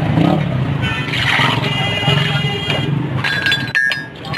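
Busy street background: vehicle engines running with a constant low hum, mixed with indistinct voices.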